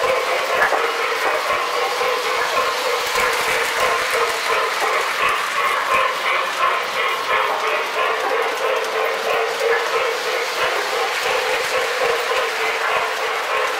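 O gauge toy train running on three-rail track: a steady hum with the continuous clatter of metal wheels over the rails.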